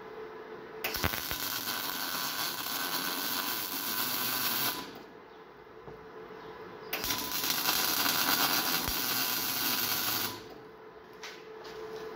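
MIG welder arc crackling and sputtering as it lays a weld on a steel part clamped in a vise, in two runs of about four and three and a half seconds with a short pause between.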